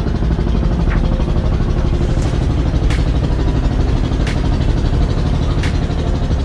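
Tour boat's engine running steadily at cruising speed, a dense low rumble with a few sharp clicks spaced a second or so apart.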